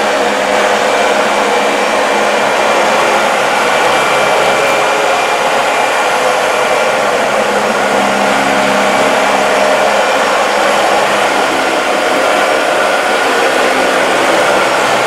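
Dyson DC40 MKII upright vacuum cleaner running steadily while vacuuming a rug: a loud, even rush of air with faint steady tones in it.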